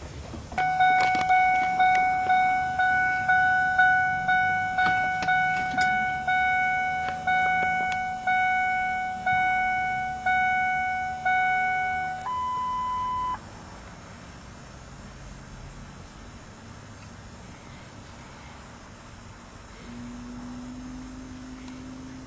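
Ford F250 dashboard warning chime at key-on: a repeating ding that slows from about two a second to one a second for about twelve seconds, then a single steady beep about a second long. A low steady hum comes in near the end, the electric fuel pump priming the new filter.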